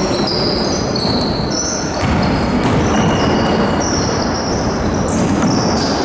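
Basketball game sounds on an indoor court: sneakers squeaking sharply on the floor again and again, and a ball bouncing, over a steady background noise from the hall.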